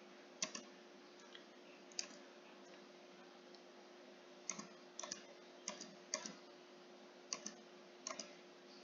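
Computer keyboard keys clicking, mostly in quick pairs, about eight times, stepping through search results in a PDF viewer's find box. A faint steady hum lies underneath.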